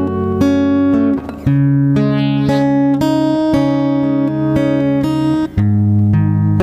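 Instrumental karaoke backing music led by plucked guitar chords, with a short break in the playing about a second in and again near the end.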